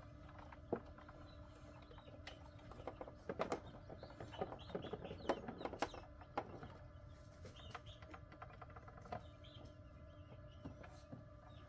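Newly hatched Coturnix quail chicks peeping faintly inside an incubator, with a cluster of peeps and small clicks about three to six seconds in. Under them runs the incubator's steady hum.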